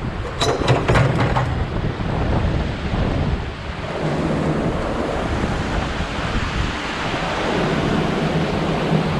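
Steady rush of water pouring from a canal overflow, with wind buffeting the microphone. A few sharp clicks come about half a second to a second and a half in.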